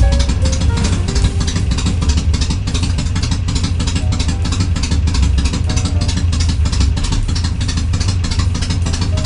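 Harley-Davidson Sportster 883R's air-cooled V-twin engine idling with an even beat of about seven or eight pulses a second. Faint background music notes sound now and then.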